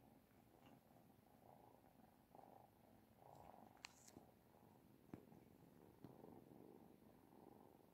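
Oriental Shorthair cats purring steadily and softly, with a few faint clicks in the middle.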